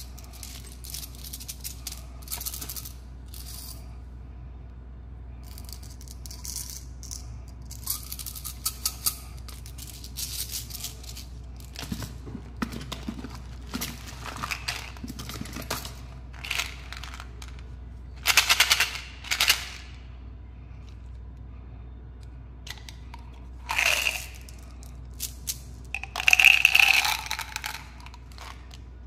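Plastic candy toys and sweet packets handled by hand: intermittent rustling, crinkling and rattling, with the loudest bursts about two-thirds of the way in and near the end, over a steady low hum.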